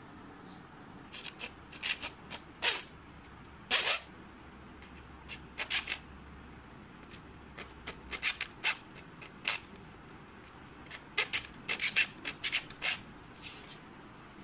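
Short, irregular scrapes, squeaks and clicks of rods and sticks being handled and fitted against plastic mesh crates, with the two loudest near three and four seconds in.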